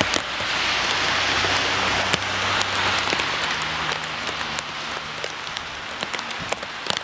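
Heavy rain falling on a flooded street: a dense steady hiss with many sharp drop hits close by, easing somewhat in the second half.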